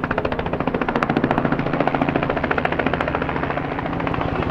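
Robinson R44 helicopter flying low and close, its two-blade main rotor giving a fast, even chop that softens a little near the end.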